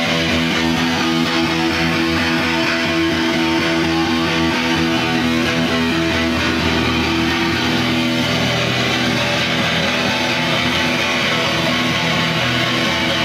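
Black metal band playing live: electric guitars and bass in a loud, dense, continuous wall of sound, with the sustained chords shifting about five seconds in and again about eight seconds in.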